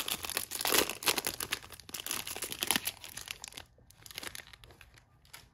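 Foil wrapper of a Topps Chrome trading-card pack crinkling as it is torn open and peeled back from the cards; the crinkling stops about three and a half seconds in, leaving faint handling sounds.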